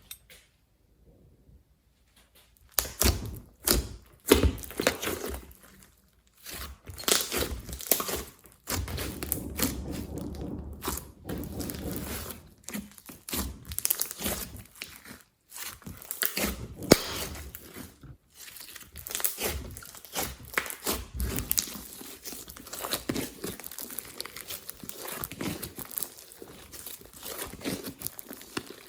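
Slime being worked by hand with clay and glitter mixed in, making a dense run of sticky crackles, clicks and squelches. It starts after a couple of seconds of near silence.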